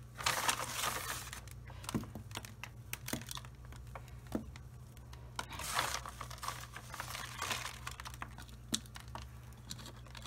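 Hands working loose, fibrous potting media around a seedling's roots, with a plastic bag of the media close by. The sound is rustling and crinkling with many small clicks and crackles, and louder spells of rustling near the start and again around six and seven seconds in.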